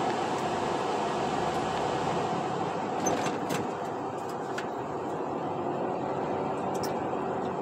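Steady engine and road noise inside a truck cab while driving, with a few faint clicks near the middle.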